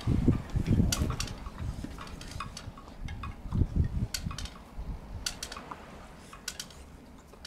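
Keeshond dogs and a puppy at play: scattered sharp clicks and ticks with a few low muffled thumps, the loudest at the very start and again about three and a half seconds in.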